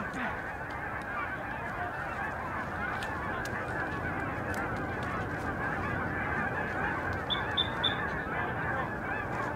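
A large flock of lesser Canada geese calling in the distance: a steady, dense chorus of many overlapping honks and cackles. Three short high peeps come about seven seconds in.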